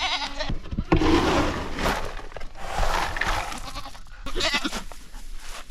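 Goats bleating a few times, with a rustling noise in between.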